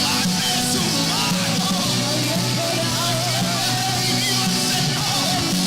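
Live worship band playing, with a sung or lead melody wavering over sustained chords and a steady beat.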